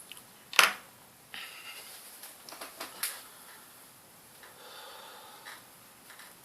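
Handling noise from laptop parts and tools: one sharp click about half a second in, then a run of light clicks, taps and scraping, and a soft rustle near the end.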